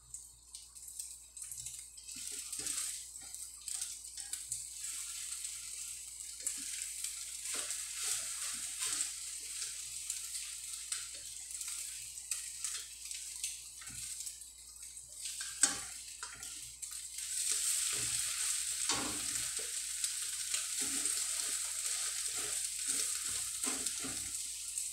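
Eggs frying in hot oil in a stainless steel wok, sizzling steadily, with scrapes and taps of a spatula turning them against the pan. The sizzle grows louder about two-thirds of the way through.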